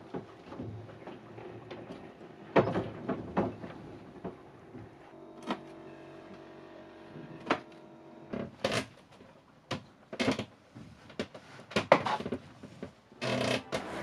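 Kitchen knife knocking on a cutting board as a fresh pineapple is cut up: irregular sharp knocks, a few in the first half, then more and closer together in the second half.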